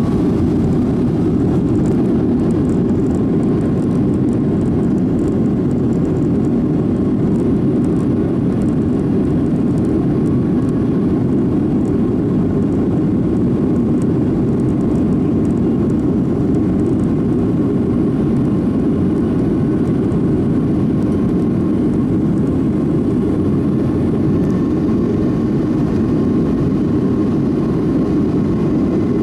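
Steady jet engine and airflow noise inside a Boeing 757's cabin, heard at a window seat over the wing as the airliner moves along the runway. A faint steady whine sits above a deep, even rush.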